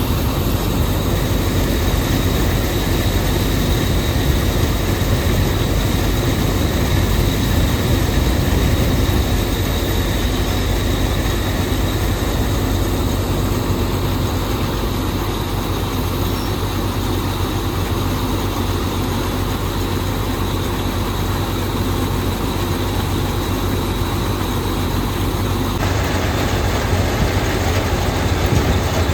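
Tractor-mounted Gahir Nippy45 mini combine harvester running steadily, with engine drone and the continuous mechanical noise of its threshing machinery.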